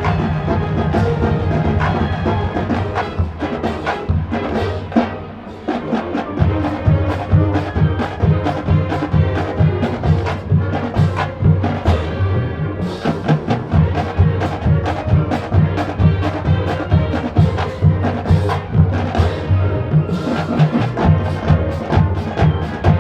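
Marching band playing with percussion: sustained chords, a short drop in level about five seconds in, then a steady drum beat under the band.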